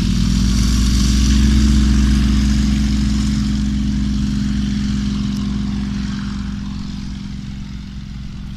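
Glider launch winch's engine at full power, having revved up just before and holding a steady high pitch while it hauls the glider up on the cable. A rushing hiss rides on top in the first few seconds, and the sound eases off gradually in the second half.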